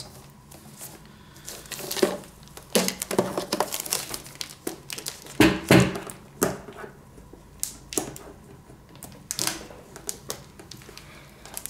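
Crinkling and rustling of the thin protective plastic film on a bathroom scale as hands lift, turn and handle it, with scattered sharp clicks and a few louder knocks, the strongest about halfway through.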